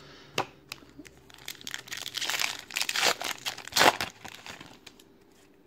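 Foil trading-card pack wrapper crinkling and tearing as it is pulled open by hand. A single click comes first, then a run of crackly rips, loudest about three to four seconds in.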